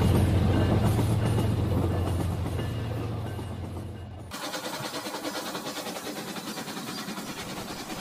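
Toy train running along plastic track: a low hum with fine, fast ticking that fades as the train draws away. About four seconds in, the sound cuts to a quieter, steady running of another toy train.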